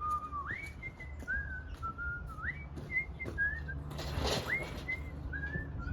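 A person whistling a tune: a single clear note stepping up and down in short held phrases. About four seconds in, a brief hissing noise cuts across it.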